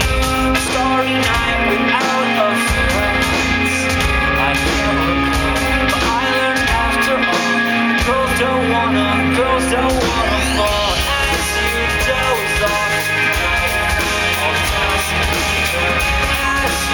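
Live pop band playing through a PA, with a man singing the lead melody over bass and drums.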